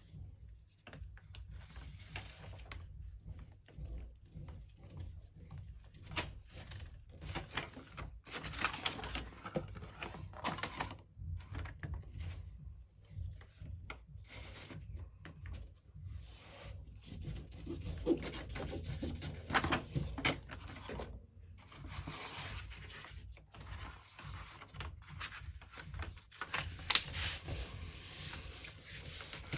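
Paper and thin cardboard handled and rubbed by hand, in irregular stop-start rustles and scrapes.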